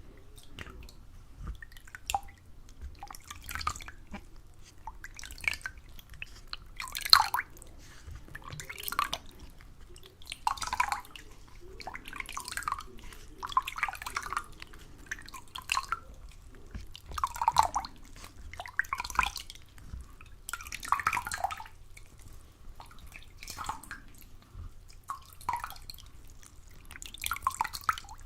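Water dripping and splashing in separate drops, about one a second at uneven intervals, some louder than others.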